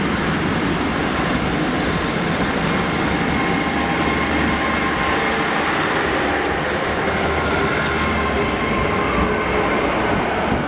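Great Western Railway Class 800 (Hitachi IET) unit 800 313 moving past along the platform: a steady rumble of wheels and running gear, with a faint high whine that falls in pitch near the end.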